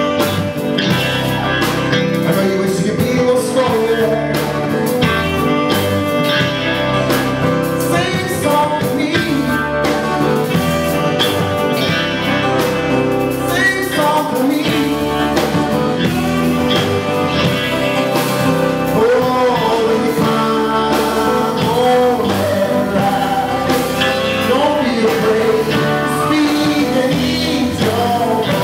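Live rock band playing a blues- and country-tinged song: acoustic and electric guitars, electric bass and drums, with a lead singer.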